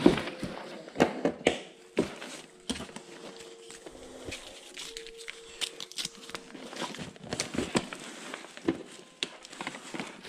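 Gear being handled and packed into a fabric backpack: fabric rustling and crinkling with a string of sharp clicks and knocks, the loudest right at the start and a second or so in. Partway through, the clicks come from a steel cable lock being handled.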